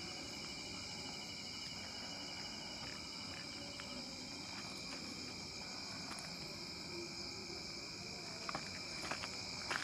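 Steady night chorus of insects such as crickets, a continuous high-pitched trill, with a few faint crunches near the end.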